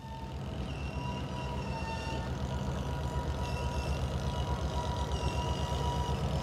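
An engine running steadily, with a fast, even low pulsing and two faint steady tones higher up.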